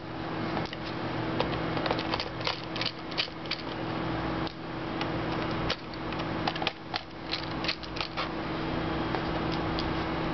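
Small screwdriver clicking and scraping as it turns out tiny screws in a PowerBook G4's battery compartment, in short irregular clicks. A steady hum runs underneath.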